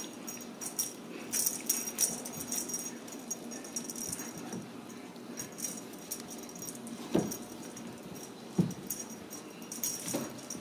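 A jingling cat toy shaken in short bursts while kittens bat at it, with two soft thumps about two-thirds of the way through.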